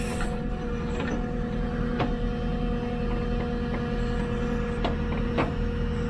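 JCB 3CX backhoe loader's diesel engine running steadily under digging load, with a steady whine over it and a few sharp knocks from the digging arm and bucket.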